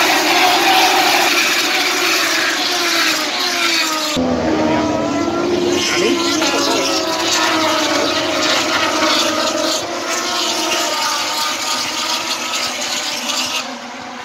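Moto2 racing motorcycles with Triumph 765 cc three-cylinder engines running at high revs, several at once, their pitches rising and falling as they pass and shift gears. About four seconds in, the sound changes abruptly to other bikes running on a farther part of the circuit.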